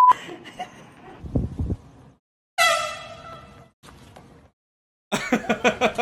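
A handheld air horn blasts loudly about two and a half seconds in and fades out over about a second. Near the end comes another horn-like sound, stuttering in rapid pulses. A low thud is heard a second or so before the first blast.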